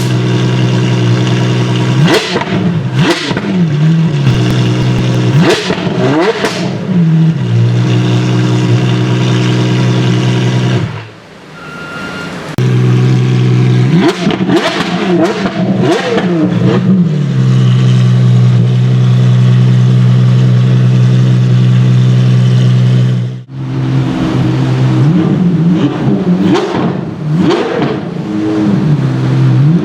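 Apollo IE's naturally aspirated V12 idling and being blipped repeatedly, the revs rising and falling quickly in short bursts several times. The sound dips briefly twice.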